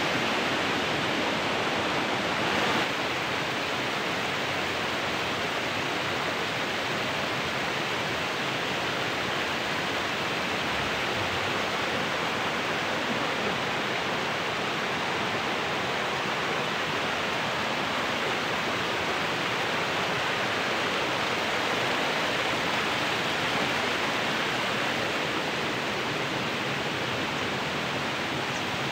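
Steady rush of water from a small waterfall and the cascades of a rocky stream.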